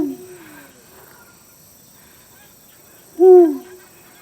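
Eurasian eagle owl hooting: a short, loud, deep hoot falling in pitch right at the start and another about three seconds in. Faint high chirps of small birds in between.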